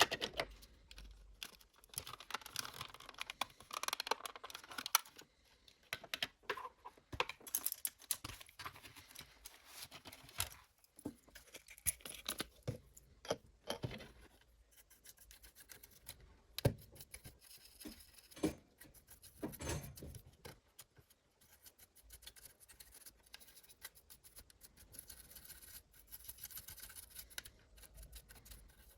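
Irregular small clicks, taps and scratching of a cassette player's small parts and hand tools being handled and worked on, with the rubbing of cleaning or scraping in between.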